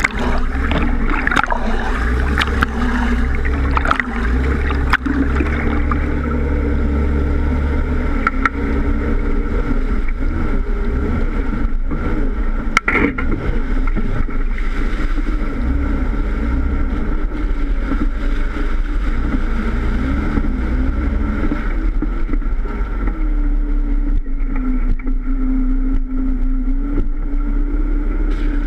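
Jeep Wrangler engine running at low revs while crawling off-road, picked up close by a bumper-mounted camera, with a deep rumble. Knocks and rattles in the first few seconds and one sharp knock about halfway through.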